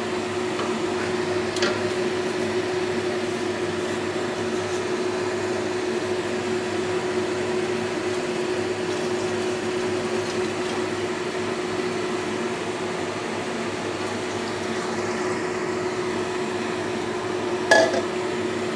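A steady mechanical hum with a constant tone, over which a wooden spatula stirs laksa paste and water in a metal pot, with a couple of light knocks against the pot.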